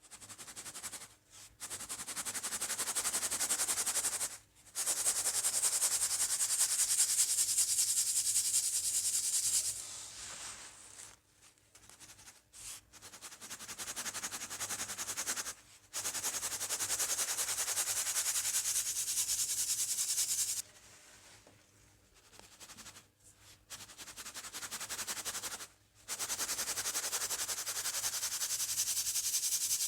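Baking soda powder being sifted through a mesh sieve: a steady, grainy hiss in stretches of several seconds, stopping and starting again several times.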